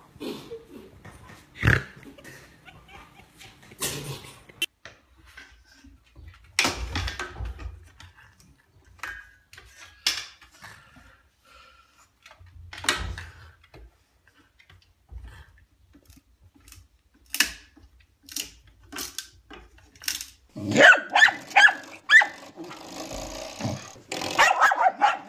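Dogs barking in short bursts, with scattered knocks and thumps between, and a run of quick barks near the end.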